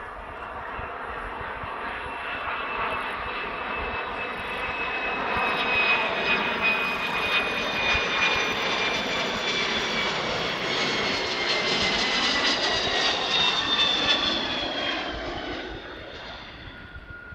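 Kawasaki EC-1's twin Pratt & Whitney JT8D turbofans on a landing approach. The jet noise swells as the aircraft nears, with a whine that sinks slowly in pitch, then fades near the end as it passes over the runway to touch down.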